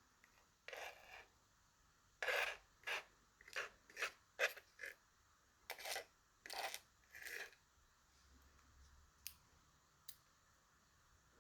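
Small metal lock parts and tools being handled while a pin-tumbler lock cylinder is taken apart: a run of about ten short scrapes and clicks over the first seven seconds or so, then a couple of faint ticks.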